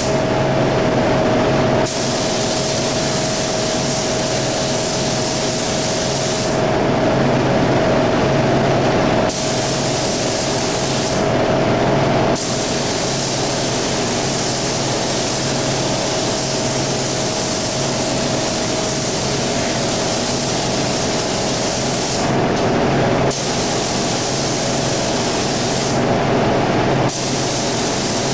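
Gravity-feed paint spray gun hissing as it sprays single-stage paint, the hiss breaking off briefly about five times as the trigger is let go, over a steady low hum.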